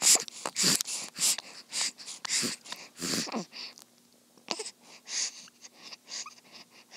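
Newborn baby sucking on a pacifier: short wet sucking sounds about twice a second, growing sparser after about three and a half seconds, with a small grunt about three seconds in.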